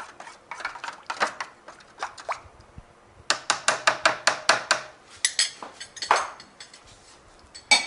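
Metal spoon stirring and scraping through a thick buttermilk marinade in an aluminium foil pan, with clinks and crinkles of the foil. About three seconds in comes a quick run of a dozen or so clicks, then a few scattered knocks.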